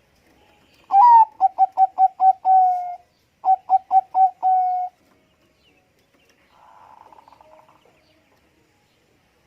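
Zebra dove (Bangkok-type perkutut) singing its staccato coo twice. Each phrase is a quick run of short notes ending in a longer drawn-out note, and the second phrase is shorter than the first.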